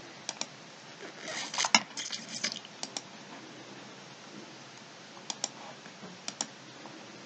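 Computer mouse button clicks, four times in quick press-and-release pairs, with a short run of clicky keyboard or mouse clatter between about one and two and a half seconds in.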